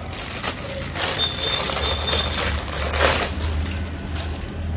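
Clear plastic wrapping being pulled and torn off a small cardboard product box, crinkling and rustling in irregular bursts, loudest about three seconds in.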